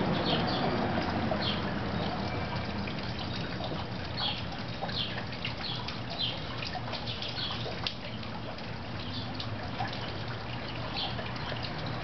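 Steady trickling and splashing of a garden fountain, with short high bird chirps repeating irregularly, roughly once a second.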